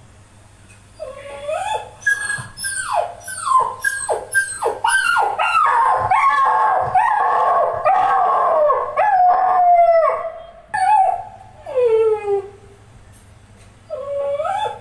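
Dogs howling and yelping: quick falling cries at first, building to several voices overlapping in a dense chorus in the middle, then a few single drawn-out falling cries near the end.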